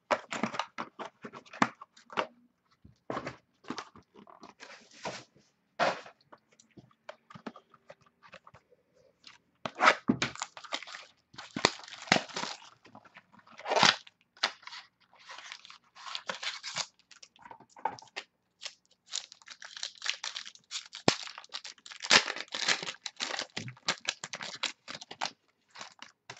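A trading-card mini box and its wrapping being torn open by hand: irregular tearing, crinkling and rustling of cardboard and wrapper, with clicks as the cards are handled. The rustling comes in busy stretches with short gaps between them.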